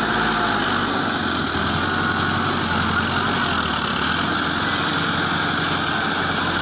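Heavy diesel engine running steadily at low revs, a deep, even drone.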